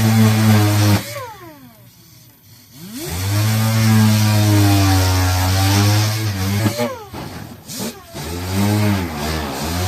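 A power tool's motor running at a steady speed with a pitched hum. It winds down about a second in and spins back up at about three seconds, then slows and speeds up again several times near the end as the trigger is let off and pressed.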